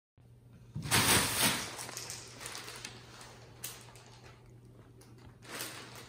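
Clear plastic bag crinkling and rustling in irregular bursts as a cat pushes against it. The loudest crinkling comes about a second in, with a sharp crackle a little after the middle.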